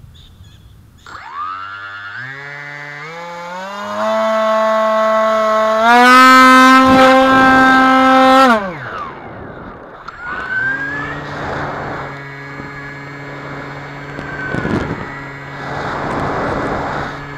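Motor and propeller of a model flying wing, heard through its onboard camera. The pitch climbs in steps as the throttle is pushed up to full and cuts off suddenly about eight and a half seconds in. About two seconds later the motor comes back on at a lower, steady pitch, with wind gusting over it.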